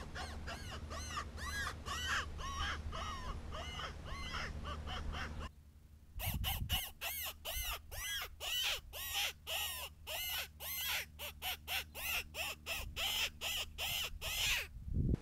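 Electronic predator call playing a rapid, repeated squealing distress cry, about four squeals a second, used to lure coyotes. The cries drop out briefly about five and a half seconds in and then carry on at the same pace.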